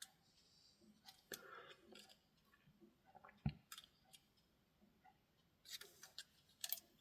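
Near silence with a few faint clicks and taps from handling the opened radio's small plastic parts and circuit boards, the sharpest about halfway through and a small cluster near the end.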